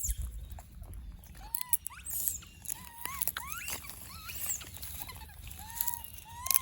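Baby monkey giving a series of short high squeaky calls, about one a second, each rising and falling in pitch, with light rustling and clicks between them.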